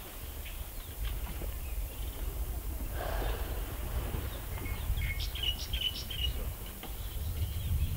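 Outdoor bush ambience: a steady low rumble, with a brief rush of noise about three seconds in and a few short bird chirps between about five and six and a half seconds.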